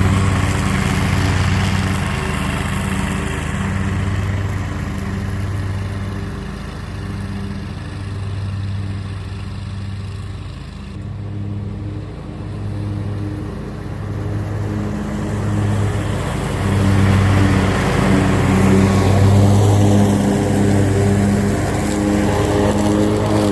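Scag Cheetah zero-turn mower's engine running steadily at cutting speed, its level dipping briefly mid-way and rising again.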